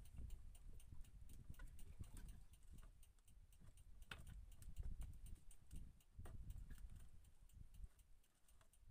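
Near silence as a handline is hauled in by hand on a small wooden boat. There is a faint low rumble of water and wind, a few soft clicks of the line and hands, and a faint, even ticking about three times a second.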